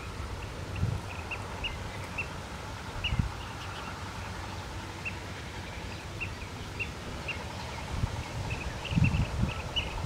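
Small birds chirping: short, high, clipped chirps, scattered at first and coming several a second near the end. Underneath are low rumbling thumps, loudest near the end.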